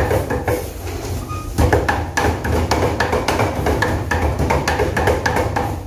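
Meat cleaver chopping raw meat on a thick wooden chopping block: rapid, uneven knocks, several a second, as the meat is minced. A steady low hum runs underneath.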